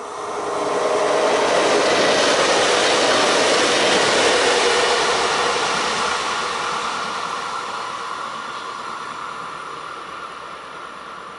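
Alstom Coradia LINT diesel railcar passing at speed: the engine and wheels on the rails swell to a peak over the first second or so, stay loud for a few seconds, then fade steadily as it runs away.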